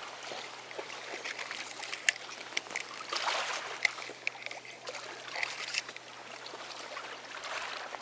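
A small boat being rowed: oars splashing in the water, with water trickling and a few sharp knocks.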